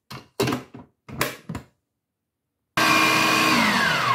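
Food processor motor switched on about three seconds in, running with a loud steady whine, then switched off and spinning down with a falling pitch. Before it, a few short knocks and clatters as the lid and bowl are handled.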